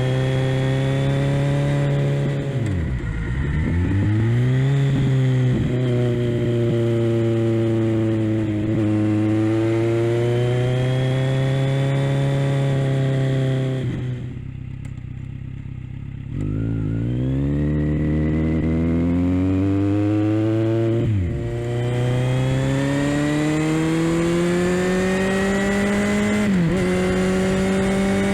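Kawasaki Z900 inline-four engine with a Leo Vince LV-10 aftermarket exhaust, under way and pulling through the gears. Its pitch climbs steadily and drops sharply at each gear change. About halfway through it goes quieter and lower for a couple of seconds off the throttle, then picks up again, with more shifts near the end.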